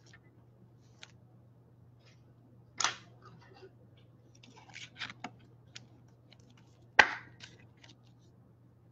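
A trading card being slipped into a clear plastic penny sleeve: soft plastic rustles and light clicks, with a sharper tap about seven seconds in, over a faint steady low hum.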